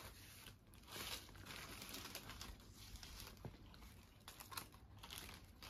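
Faint rustling and crinkling of garments and their packaging being handled, with a few soft clicks over near-silent room tone.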